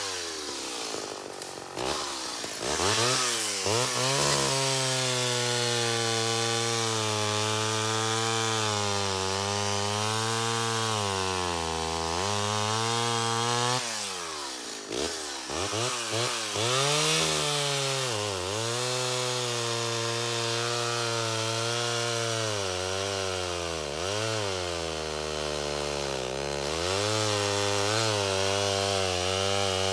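Vintage Homelite XL-12 two-stroke chainsaw cutting through oak logs at full throttle, its engine pitch sagging as the chain loads up in the wood. The revs drop near the start and again about halfway through, then climb back as the next cut goes in.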